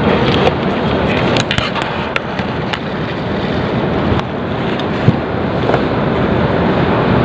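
Steady rumble and hiss of a moving vehicle, with scattered light clicks and knocks.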